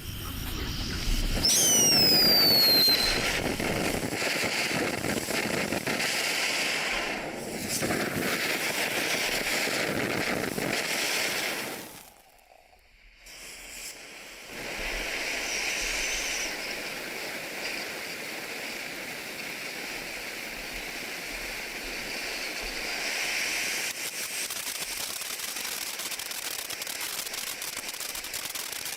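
'Meow!' consumer firework fountain burning: a steady spraying hiss with crackle, and a few high falling whistles about two seconds in. About halfway through it drops almost to silence for a couple of seconds, then the hissing and crackling pick up again.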